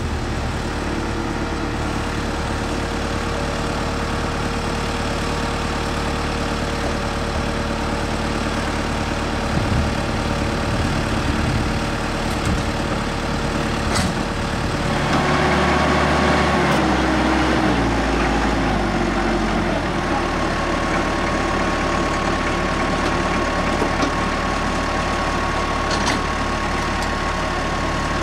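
Trackless MT7 compact tractor's engine running steadily with its PTO-driven generator attached. About halfway through the engine note drops in steps over a few seconds, then settles into a steady run with a thin high whine on top.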